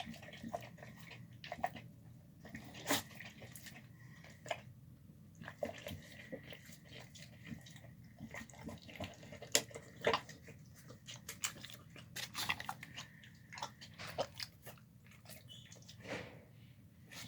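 Dog eating a wet meal of chunk chicken and rice: irregular wet chewing and mouth clicks.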